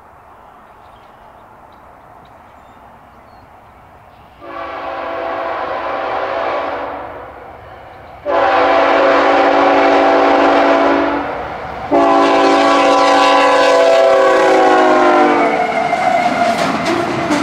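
CSX diesel locomotive's air horn sounding three long blasts for a grade crossing, the last one dropping in pitch as the locomotive passes, followed by the loud rumble and clatter of the double-stack train going by. Before the horn, only the faint rumble of the approaching train.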